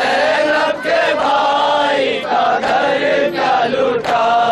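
A group of men chanting a mourning lament for Husain in unison, several voices holding long wavering notes together, with a few sharp slap-like strikes about a second apart.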